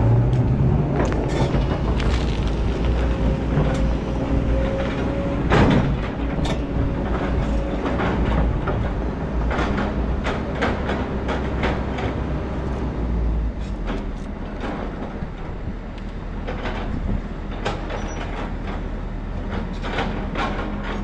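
Kobelco crawler excavator's diesel engine running under load, with clanks and scrapes of the bucket and stones against rock and soil. The low engine drone eases off about two-thirds of the way through.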